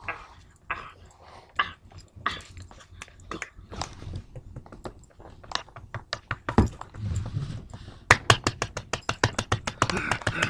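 Cocker spaniel puppy scuffling and play-biting at a person's hand and feet, with many quick clicks and scrapes that become dense and rapid in the last two seconds.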